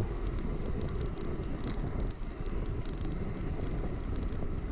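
Steady wind rush on the microphone of a bicycle-mounted camera, with the bicycle's tyre noise on the road, riding at speed.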